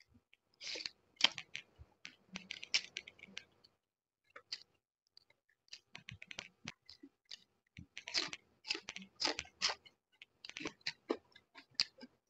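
A person chewing roast chicken wing with their mouth close to the microphone. It comes in bursts of short clicky mouth sounds with brief pauses between them.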